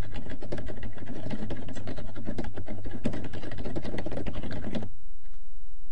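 Rapid typing on a computer keyboard, a quick irregular run of keystrokes that stops about five seconds in.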